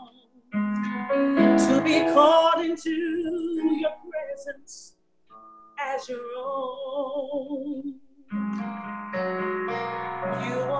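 A woman singing solo, long held notes with a wavering vibrato, in phrases broken by short pauses about four and eight seconds in.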